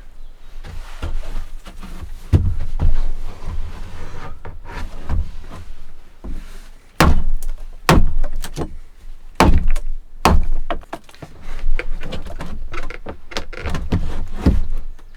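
Wood being struck and broken: an irregular run of heavy wooden thunks and cracks, with the loudest blows coming in the second half.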